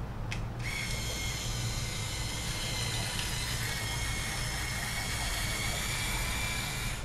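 InStyler rotating heated-barrel hair iron running, its motor turning the barrel through a section of hair with a steady high-pitched whine over a low hum. The whine sets in about half a second in.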